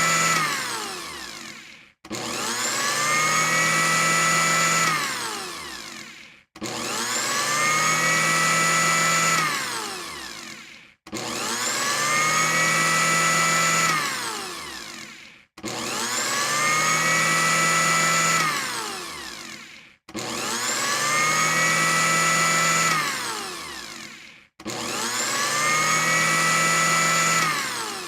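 Electric blender motor pulsed over and over: each time it whines up to speed, runs steadily for about three seconds, then is switched off and winds down in falling pitch before starting again, about six times.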